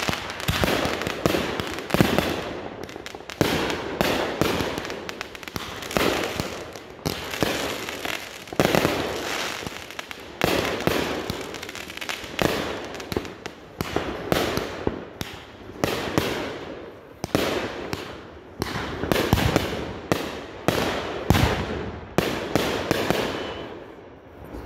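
Ground-launched consumer fireworks firing in a rapid barrage: overlapping launch thumps, bangs and crackling bursts, several a second, thinning out near the end.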